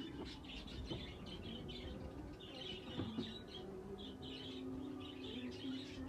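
Many exhibition budgerigars chirping and chattering together.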